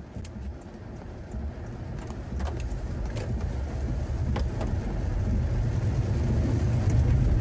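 Car driving on the road, a low rumble of engine and tyres that grows steadily louder, with a few faint clicks.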